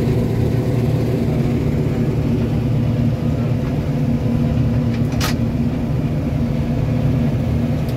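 Combine harvester running steadily while cutting grain, heard from inside the cab: a constant engine and machinery drone with a low hum. A single brief sharp click about five seconds in.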